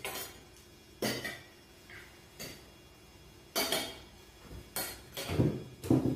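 Forks and spoons clinking and scraping on ceramic dinner plates during a meal, a string of separate clinks about a second apart, with duller, lower knocks near the end.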